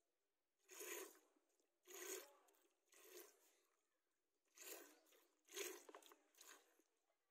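Faint jets of milk squirting into a plastic bowl as a cow is milked by hand: six short squirts, about one a second.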